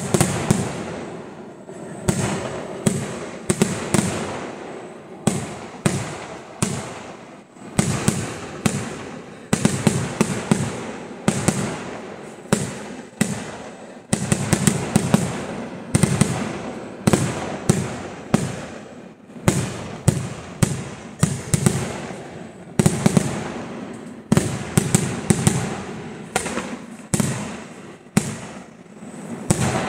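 Kerala temple fireworks (vedikettu) firing in a continuous barrage: sharp bangs come several to a second in clusters, each trailing off in a rolling echo.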